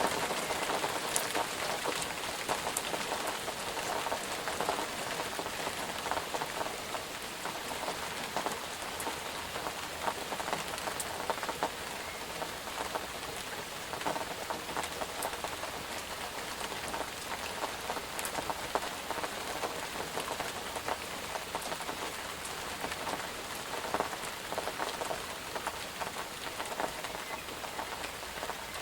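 Steady rain falling on a surface, with many individual drops pattering and ticking close by.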